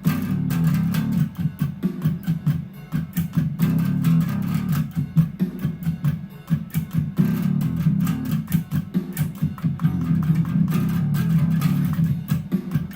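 Electric bass guitar played through a song's part: a steady run of quick, repeated picked notes low on the neck, with sharp attacks.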